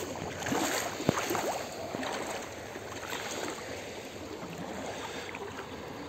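Shallow seawater sloshing and splashing softly around a person's legs as he wades in from the shore, a little louder in the first couple of seconds.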